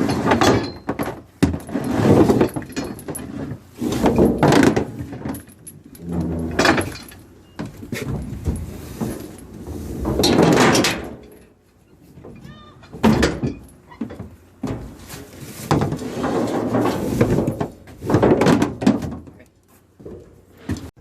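Irregular thumps, knocks and scraping as a fishing net and its gear are hauled and laid out on a trawler's deck, coming in bursts of a second or two with short pauses between.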